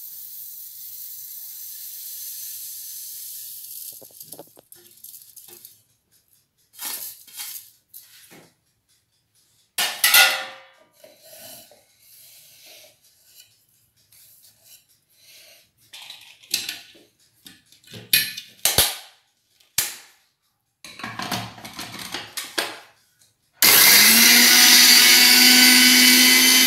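Sesame seeds poured from a bowl into a steel mixer-grinder jar with a steady hiss, then the clinks and scrapes of steel bowls and the jar as it is filled by hand. Near the end a Sujata mixer grinder starts with a brief rising whine and runs loud and steady, grinding the sesame seeds into powder.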